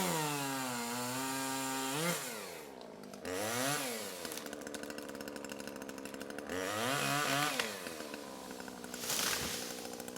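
Chainsaw revving up and down several times, with a steadier stretch of running in the middle.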